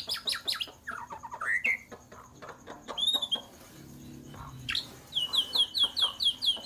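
Small birds chirping: scattered high chirps and squeaks, then a quick run of about seven short chirps a second near the end.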